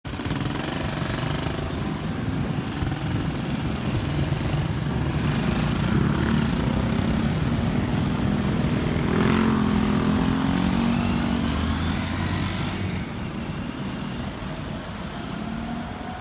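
Loud, steady low engine rumble with a brief sweep in pitch about nine seconds in.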